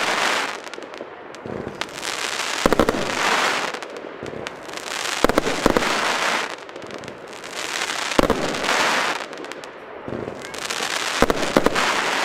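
Pyrogenie 'Fächerbatterie Crackling' fan-shaped firework cake firing crackling-star volleys. About every three seconds a cluster of launch bangs is followed by a dense crackling hiss lasting a second or two, four times over.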